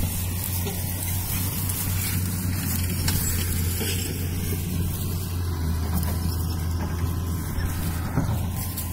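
An engine running at a steady speed: a low, even drone that holds constant throughout.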